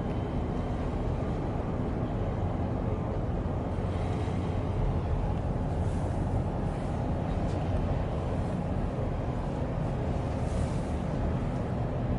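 Steady low rumble of a large container ship's engines and machinery as the ship passes close by, with faint steady hum tones in it.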